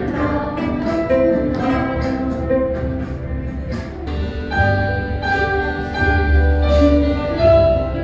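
Instrumental music: a melody over a steady bass line, with the bass getting stronger about halfway through.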